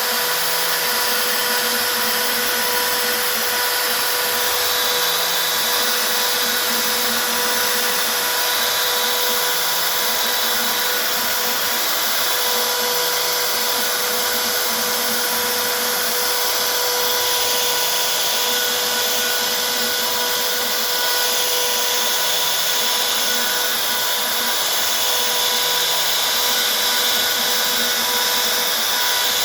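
CNC milling machine cutting a logo into a metal part, its spindle running with a steady high whine over a constant hissing rush. A lower hum swells and fades every few seconds as the cut moves along.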